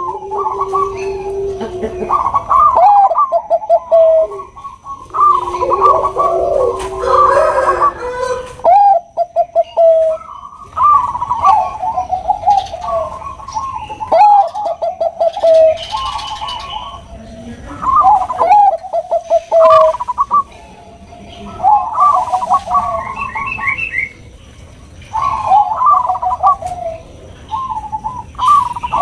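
Perkutut bangkok (Thai-bred zebra doves) cooing: phrases of quick staccato coos, each about two seconds long, repeated every few seconds and at times overlapping.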